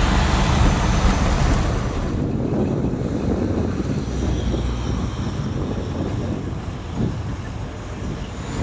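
Road rumble and wind noise from a moving vehicle on a highway. About two seconds in the sound turns duller, with the hiss dropping away and a low rumble remaining.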